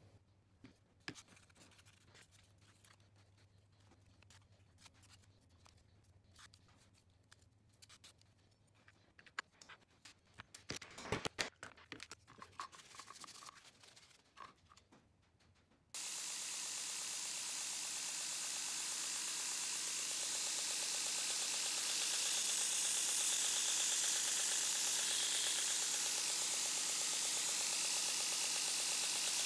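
Quiet handling sounds come first: faint clicks and rustles while micarta handle scales are glued and clamped onto the knife tang, with a cluster of sharper clicks around ten to twelve seconds in. Then, suddenly and for the rest of the time, a 2x72 belt grinder makes a loud, steady hiss as a 60-grit aluminium oxide belt roughs in the micarta handle.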